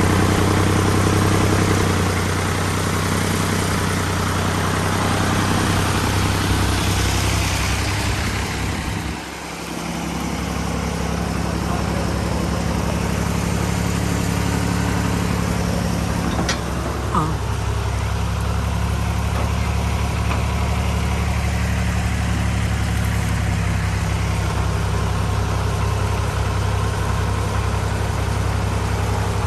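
Fiat 480 tractor's three-cylinder diesel engine running steadily, with a brief dip in level about nine seconds in.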